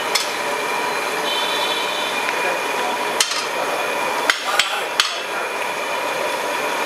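Steady hiss of rice simmering in a steel pot, with a few sharp knocks, most of them between three and five seconds in.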